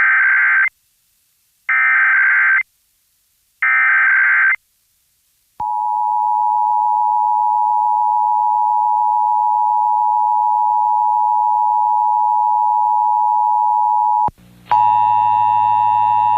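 Emergency Alert System test heard over broadcast radio: three short warbling bursts of SAME header data about a second apart, then the steady two-tone EAS attention signal held for about nine seconds and cut off abruptly. About a second later a harsher buzzing tone with many overtones starts and runs to the end.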